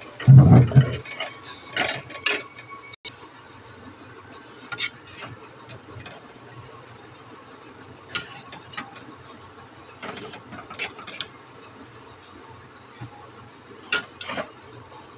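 Steel spatula knocking and scraping against a metal kadai while stirring roasting vermicelli, in scattered strokes with pauses between. The heaviest knock comes about half a second in.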